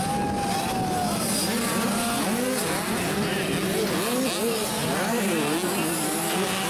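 Several 65cc two-stroke motocross bikes racing, their engines revving up and down in pitch as the riders work the throttles over the jumps and turns.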